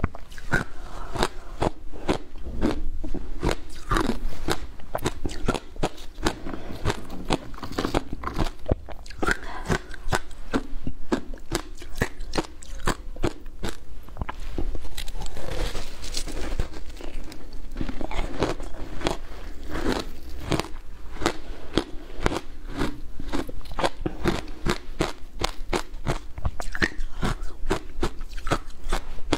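Shaved ice coated in passion fruit pulp being crunched and chewed: a dense, continuous run of sharp crunches.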